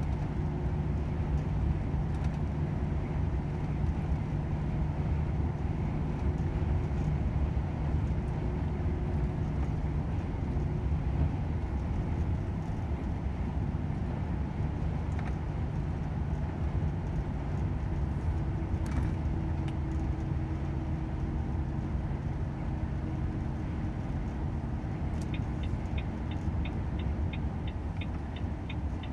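Volvo FH 500 truck's 13-litre six-cylinder diesel running steadily under way, with a continuous engine hum and road noise that shift slightly in pitch twice. A fast, even ticking comes in over the last few seconds.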